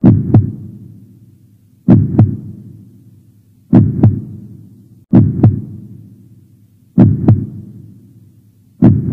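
Heartbeat sound effect: six double thumps (lub-dub), each fading out, repeating about every one and a half to two seconds.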